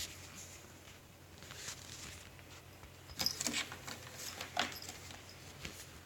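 Bengal cat rolling and rubbing on a corrugated cardboard scratcher: soft, scratchy rustles of fur and paws against the cardboard, in a few short clusters a little past the middle.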